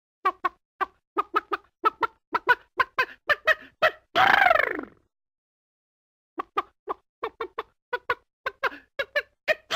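Chicken clucking: two quick runs of short clucks, about five a second, split by a pause of about a second and a half. The first run ends in a longer call that rises and then falls in pitch, and another long call starts near the end.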